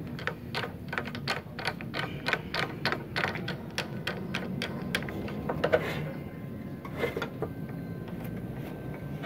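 A MIG torch's Euro connector being pushed into a wire feeder's socket and its collar screwed tight by hand. It makes a run of quick, sharp clicks, nearly four a second, that thins out after about six seconds.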